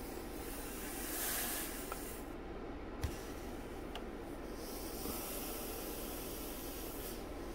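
Hot clothes iron pressed and slid over a soaking-wet t-shirt, the water hissing off as steam. The hiss swells about a second in and again from about halfway, with one light knock about three seconds in.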